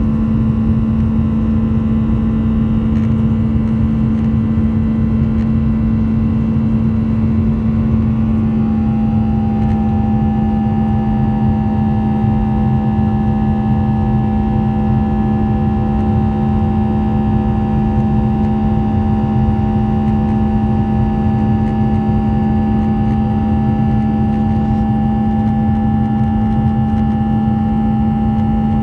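Cabin noise of a climbing Boeing 737-800: the steady drone of its CFM56-7B turbofan engines heard through the fuselage, with a strong low hum. About eight seconds in, a higher whine comes in and holds steady.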